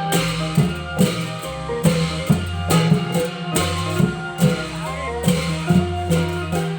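Thai klong yao long-drum band playing: drum strokes on a steady beat under a plucked-string melody and a held bass line.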